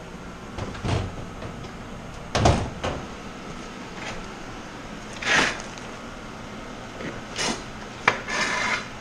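Wooden boards and metal parts being handled and shifted around a storage cabinet: a string of separate knocks, clunks and scrapes, the heaviest clunk about two and a half seconds in, and a sharp click followed by a short scrape near the end.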